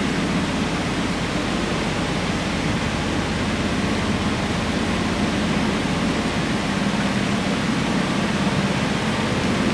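Industrial polishing and calibrating machine running steadily: a continuous rushing noise over a low hum.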